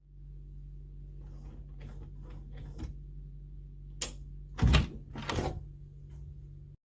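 Clicks and knocks of a door lock and handle being handled: several light clicks, a sharp click about four seconds in, then two louder clunks a second later, over a steady low hum.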